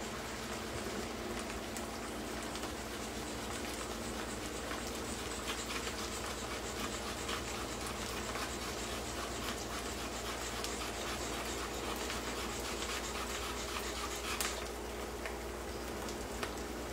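Pan of onions frying in olive oil, sizzling and crackling steadily as the splash of white wine cooks off.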